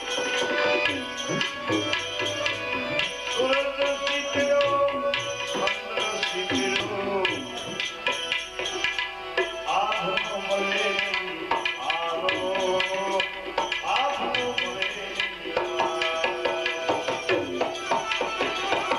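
Bhajan music: tabla playing a steady rhythm under a melody line with sliding notes.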